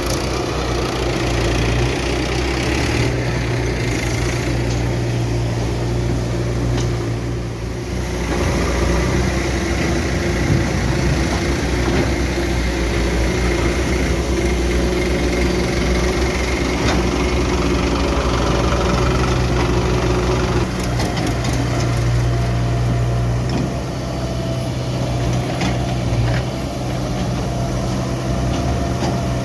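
Diesel engine of a JCB 3DX backhoe loader running steadily while it digs and loads mud, the level dipping briefly twice, with a few faint knocks.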